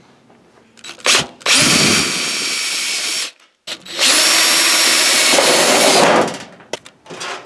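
Power drill running twice, about two seconds each time, with a steady high whine, driving self-tapping screws through the emergency LED driver's mounting flange into the sheet-metal fixture housing.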